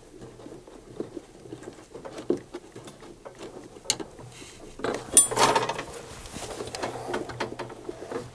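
Hand-tightening a level switch's nut onto its metal bracket: small clicks and rubbing from fingers working the nut and the switch's wires, with a louder rustle and clatter for about a second, five seconds in.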